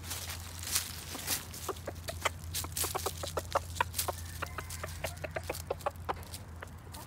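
Chickens clucking in short, irregular notes, several a second, over a low steady hum.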